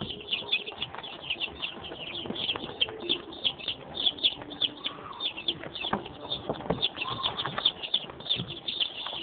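A brood of young chicks peeping continuously, many short high chirps overlapping at several a second, with a few soft knocks among them.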